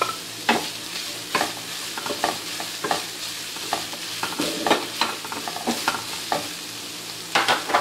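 Chopped chicken and diced capsicum sizzling in a frying pan while a steel spoon stirs them, scraping and tapping against the pan at irregular intervals. A louder cluster of scrapes comes near the end.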